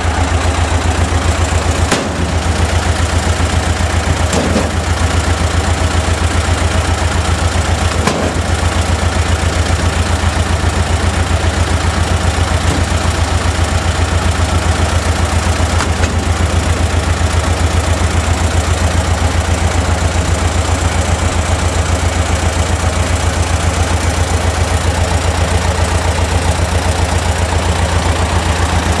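Tractor's diesel engine running steadily with an even pulsing beat, powering a firewood splitter. A few short knocks of birch logs being split and handled come about 2, 4 and 8 seconds in.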